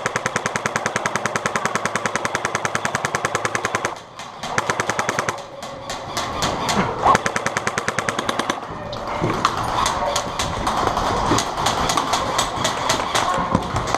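Airsoft guns firing on full auto: a long, even burst of about fifteen shots a second for about four seconds, then shorter bursts and scattered single shots.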